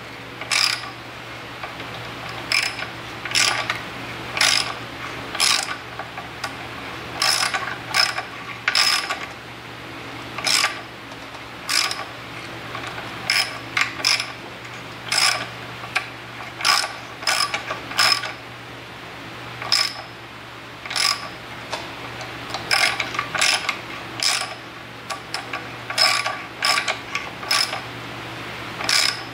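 A thread tap being turned by hand into a steel plate with a ratcheting tap handle, the ratchet clicking in short runs about every second or so as the handle is swung back between cuts. A steady low hum runs underneath.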